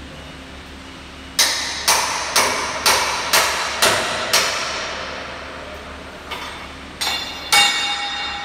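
Hammer striking the steel fittings of a Celette frame-straightening bench: seven blows about two a second, then after a pause a few harder strikes near the end that ring out with a metallic clang.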